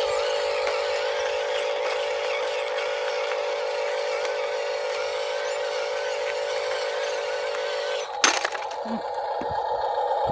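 Steady electric-motor and gear whine from a Huina remote-control truck driving. About eight seconds in there is a sharp click, after which the whine carries on at a slightly higher pitch.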